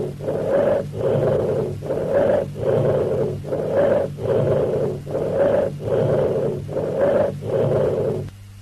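Bronchial (tracheal) breath sound: a loud, high-pitched, blowing rush of air through the windpipe, repeated in an even run of about two breath sounds a second with short gaps between them, stopping about eight seconds in. Heard over the chest, this sound is a sign of consolidated lung.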